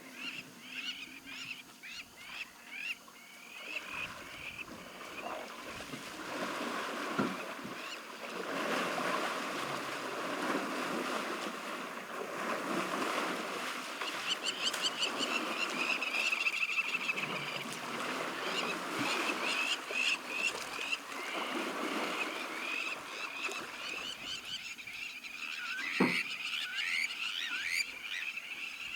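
Wetland wildlife calling: quick high chirps of birds repeat over a dense chorus of lower calls, typical of frogs and waterfowl, with one sharp click near the end.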